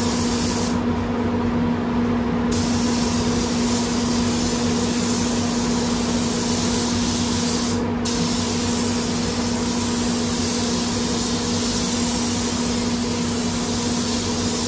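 DeVilbiss gravity-feed spray gun hissing as it sprays solvent base coat onto a car body. The hiss stops for about two seconds about a second in, and briefly again about eight seconds in, as the trigger is let off. A steady low hum runs underneath.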